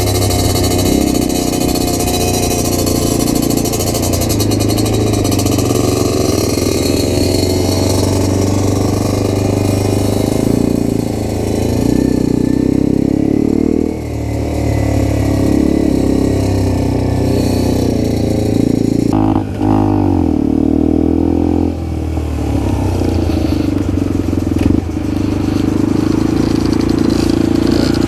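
Motrac M5 mini supermoto's single-cylinder engine running under way, its pitch rising and falling with throttle and gear changes. About two-thirds of the way in it dips briefly, then climbs again as the bike pulls away.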